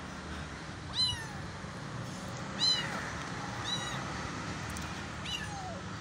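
A young kitten meowing four times. The calls are short and high-pitched, each rising and then falling in pitch, spaced a second or two apart.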